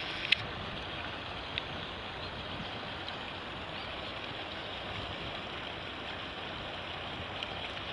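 Steady harbour ambience on a quayside: an even rushing noise, with a couple of sharp clicks about a second in and a few faint high chirps.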